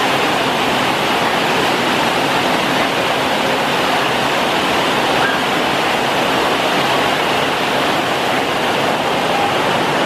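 A loud, steady rushing hiss with no pitch or rhythm, unchanging throughout.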